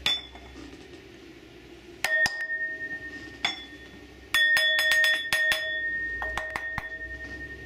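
White brass pestle striking and grinding inside a white brass mortar, the bowl ringing with a clear bell-like tone after each hit. A few single strikes come first, then a quick run of strikes about halfway through, the ring holding on between them.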